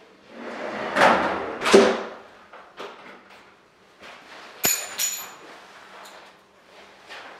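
Bottom drawer of a Rosengrens Eurovertical steel four-drawer filing cabinet rolling shut and closing with a thud about a second and a half in. A few seconds later come two sharp metallic clicks with a brief ring.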